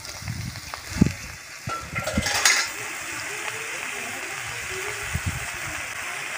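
Metal spatula stirring and knocking against an iron karahi of frying potatoes and oyster mushrooms, with a few knocks early on, then a steady frying sizzle. A short louder rush of hiss comes about two and a half seconds in.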